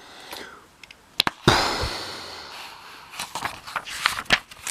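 A sharp click, then about a second and a half in a sudden explosion-like bang that trails off in a hiss over about a second, with a few small clicks near the end.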